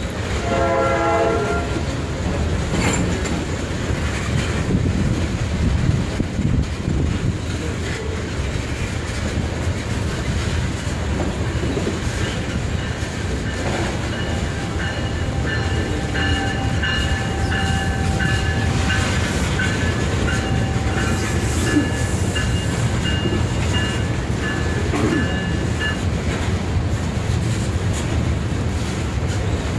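Loaded tank cars of a CSX freight train rolling slowly past, with a steady low rumble of cars and wheels on the rail. A short pitched squeal comes about a second in, and thin high squealing tones come and go for about fourteen seconds in the middle. The train is creeping at restricted speed over an integrity failure.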